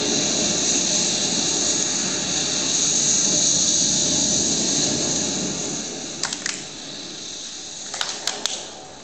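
A steady hissing noise that fades away over the last few seconds, with a few sharp clicks near the end.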